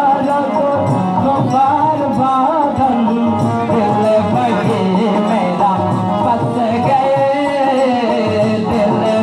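A boy singing a melody into a microphone, accompanied by an electronic keyboard and tabla.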